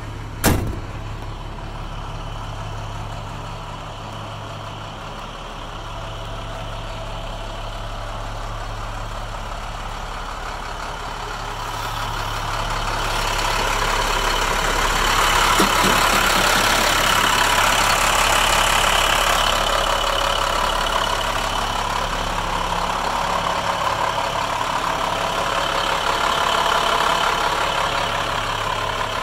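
International DT466 inline-six diesel of a 2012 International 4300 truck idling steadily, growing louder from about 13 seconds in, nearer the open engine bay. A door slams shut about half a second in.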